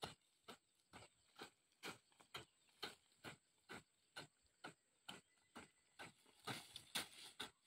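A hand hoe chopping into dry hillside soil in short, even strokes, about two a second.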